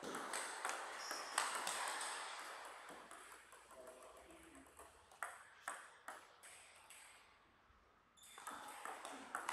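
Table tennis rally: the ball clicks sharply off the bats and the table in quick succession for about three seconds. Then a pause with a few scattered ball bounces, and a new rally starts near the end.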